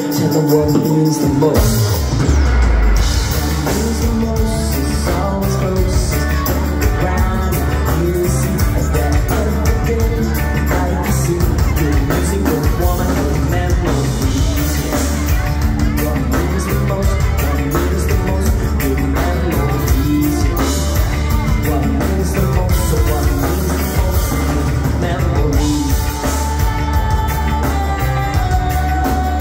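Live rock band playing loud, with electric guitars, keyboards, drums and saxophone and a singer's voice; the bass and drums come in heavily about a second and a half in.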